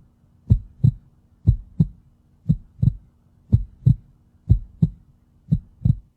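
Heartbeat sound: six double lub-dub thumps, about one pair a second, over a faint steady hum.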